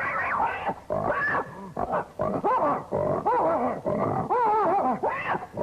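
A man imitating with his voice a pack of dogs barking and yelping at a hog that squeals, all at once: a rapid run of short yelps and squeals that rise and fall in pitch.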